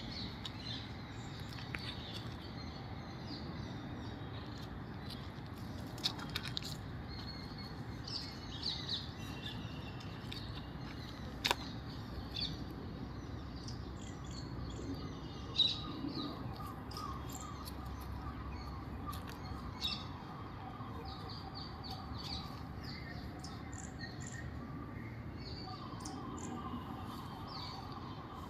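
Several small birds chirping and calling in short high notes, with a run of quick repeated notes through the middle and later part, over a steady low background hum and a few sharp clicks.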